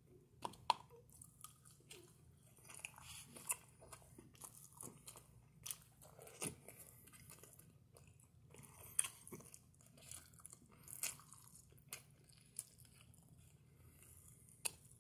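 Close-up chewing and wet lip smacks of someone eating canned herring fish steak in soybean oil, with many small sharp clicks and crunches scattered through.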